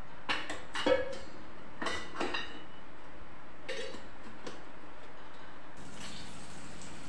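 Stainless steel kitchen utensils clinking and clanking, a handful of sharp knocks in the first few seconds with the loudest about a second in. Near the end a faint sizzle starts as sliced onions go into hot oil in the pan.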